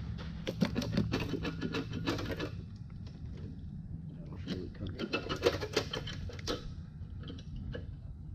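Rapid metal clicking and clattering in two bursts of about two seconds each, over a steady low hum, as a cylinder head is worked loose from a Gen 3 LS 5.3 V8 block.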